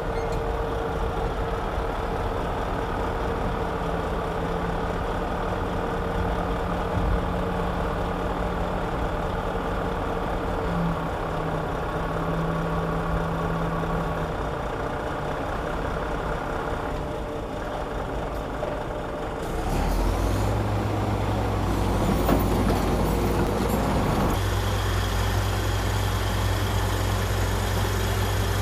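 Heavy diesel earthmoving machinery running steadily. About two-thirds of the way in, a louder, deeper engine takes over, with a few seconds of rough hissing noise over it before it settles back to a steady run.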